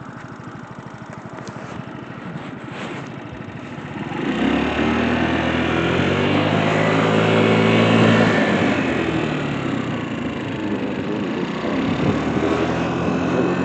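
A motor vehicle engine comes in about four seconds in, shifting in pitch as it gets loudest around eight seconds, and keeps running to the end.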